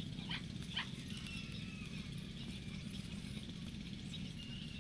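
Two short animal cries, about half a second apart soon after the start, then a faint thin whine, over a steady low background noise.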